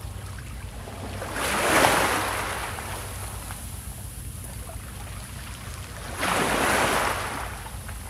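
Small waves breaking on a pebble beach: two surges, about a second and a half in and again near six seconds, each rising quickly and then fading.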